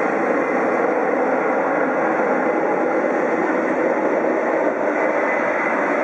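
Boeing 747-400's four Pratt & Whitney PW4056 turbofan engines at take-off power during the take-off roll: a loud, steady jet noise.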